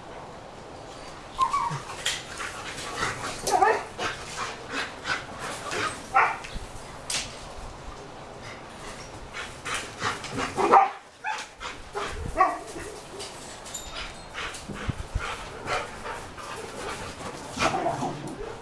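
Two Boxer dogs in rough play, giving short barks and yips in quick, irregular bunches, with a brief lull about two-thirds of the way through.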